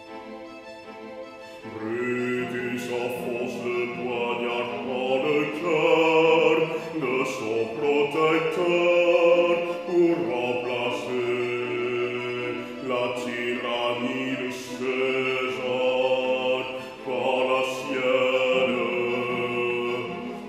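Operatic baritone singing with a wavering, vibrato-like voice over sustained instrumental accompaniment, coming in loudly about two seconds in after soft held chords.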